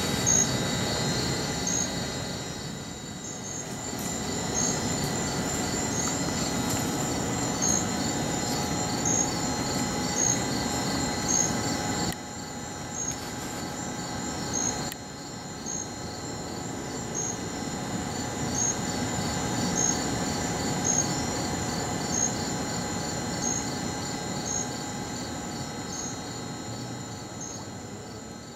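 Night insects, crickets, calling steadily: a high continuous trill with a regular chirp about once a second, over a low rushing noise.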